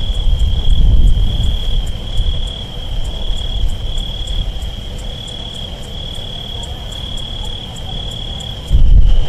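Insects trilling steadily at a high pitch over a loud, deep rumble; the rumble swells suddenly near the end.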